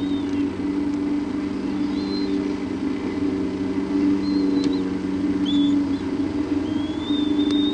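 Steady low mechanical hum with thin, high whistled chirps over it, about five of them, the last one longer and rising near the end.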